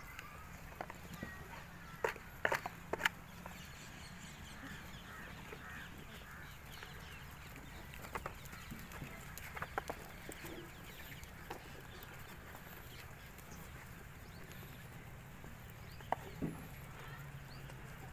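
Chickens clucking in short scattered calls over a steady low hum, with the densest cluster about two to three seconds in.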